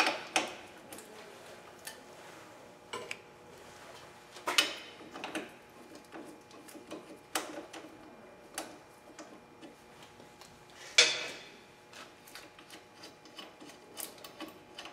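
Front brake caliper mounting bracket bolts being worked out by hand and with a wrench after being broken loose. There are irregular light metallic ticks and clicks, with a sharper clink about four and a half seconds in and a louder one about eleven seconds in.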